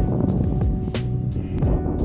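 Background music with a steady beat: sustained tones over regular percussion hits.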